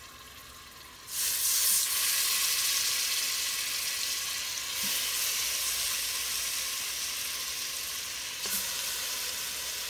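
Seasoned pork country-style ribs sizzling in hot olive oil in an Instant Pot's steel inner pot as they are laid in to brown. The sizzle starts suddenly about a second in, then slowly fades, with a brief fresh burst near the end as another piece goes in.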